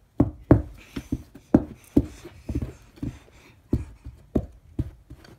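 A small plastic toy horse bounced by hand along a carpeted floor in a galloping motion, making a quick, uneven run of soft thumps, about three a second.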